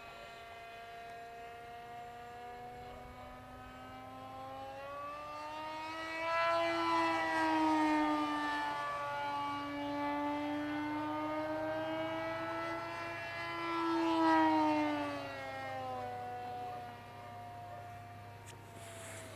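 Electric motor and propeller of a scratchbuilt depron RC plane, a Freewing Moray clone, in flight: a whine that grows louder from about six seconds in, its pitch rising and falling twice before it fades again near the end.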